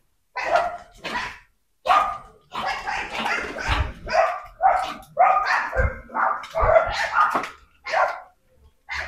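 A litter of dachshund puppies yipping and barking in short, high calls, one or two a second, as they play-fight.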